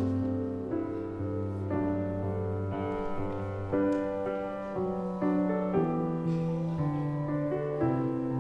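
Slow piano music, sustained chords shifting every second or so.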